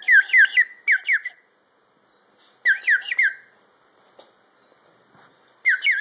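Water-filled bird whistle blown in four short bursts of quick, falling chirps, with pauses between the bursts.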